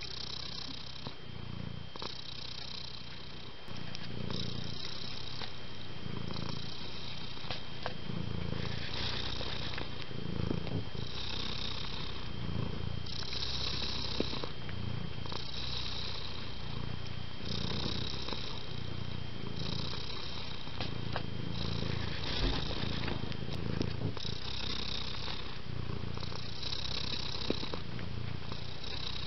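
Long-haired tabby cat purring, the purr swelling and fading about every two seconds as it breathes in and out.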